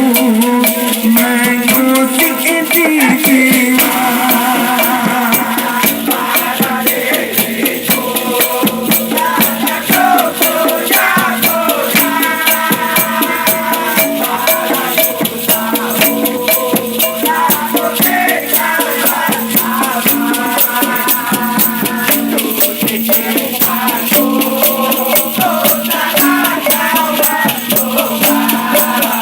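Music from a Malay pop song: a melody line over a fast, steady shaker-like rattle.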